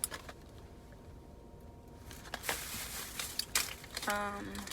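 Plastic packaging crinkling and clicking as it is handled. A couple of light clicks come at the start, then a burst of crinkling about two seconds in.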